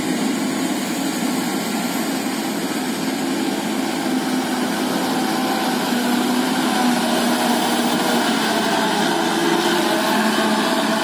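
Diesel engine of a Mitsubishi Fuso dump truck, laden with coal, running as the truck drives slowly past. It is a steady engine sound that grows a little louder in the second half.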